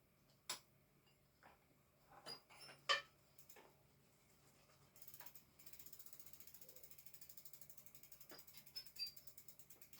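A few light knocks of bicycle parts being handled, then from about halfway a bicycle freewheel ticking quickly and evenly, about eight clicks a second, as the drivetrain turns.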